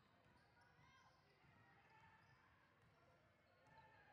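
Faint basketball gym sound: a ball bouncing on the court, with distant crowd chatter.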